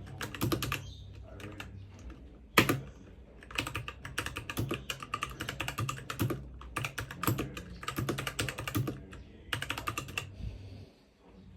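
Typing on a Royal Kludge RK61 mechanical keyboard: quick runs of keystrokes broken by short pauses, with one louder key strike about two and a half seconds in. A low steady hum lies underneath and stops near the end.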